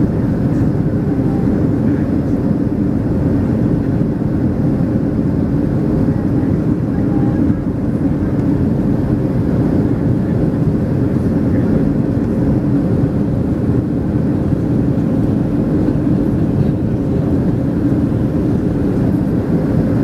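Boeing 737-300's CFM56-3 jet engines heard from inside the passenger cabin during the climb after takeoff: a steady low drone with a faint steady hum.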